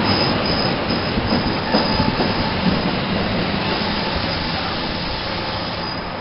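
A train rolling past close by: steady wheel-on-rail noise with a thin, high wheel squeal on and off and a few sharp clicks over rail joints, easing slowly toward the end.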